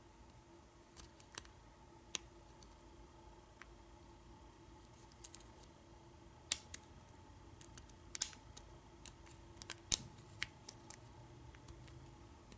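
Faint, irregular metallic clicks and ticks of a hook pick working the pin stack of an American 1100 padlock under heavy tension, with a few sharper clicks around the middle and near the end.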